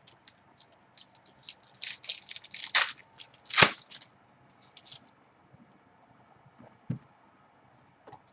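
Card packaging being crinkled and torn open by hand: a run of short crackles and clicks, loudest about three and a half seconds in, then a single soft thump near seven seconds.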